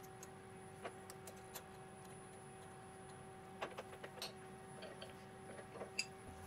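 Light metallic clicks and taps as a drill bit is fitted into a mill's collet chuck and the collet nut is tightened, with a sharper click about six seconds in. A steady hum runs underneath.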